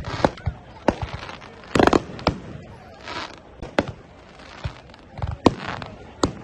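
Aerial fireworks going off: a string of sharp bangs, roughly one a second, with crackling hiss between them. The loudest burst comes about two seconds in.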